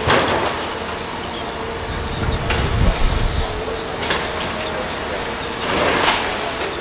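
Steady mechanical drone of the aerial platform truck's engine and hydraulics, with a faint constant hum. Sharp metallic knocks come about four times as rescuers work at the window bars, and a low rumble swells about halfway through.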